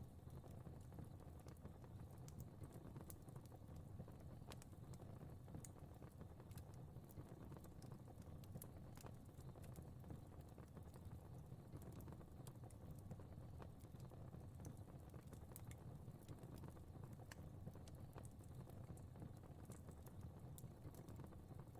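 Fire crackling faintly: irregular small pops and snaps over a low, steady rumble of the flames.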